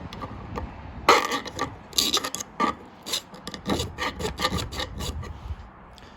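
Flat file scraping over the steel cutting edge of a pole-drilling bit in a quick, uneven run of short strokes, sharpening an edge that had worn round. The strokes die away near the end.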